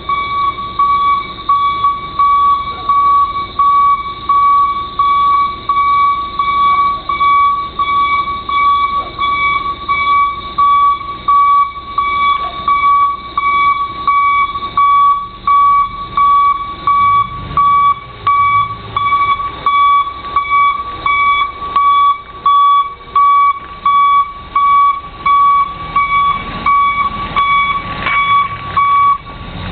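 Truck's reversing alarm beeping, one high steady tone repeated a little over once a second; it stops just before the end as the truck's engine comes up.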